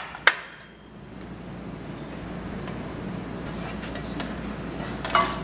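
A metal baking pan being handled on a countertop: two sharp knocks at the start, faint handling and rubbing as olive oil is spread across its bottom, and a metallic clank near the end, over a steady low kitchen hum.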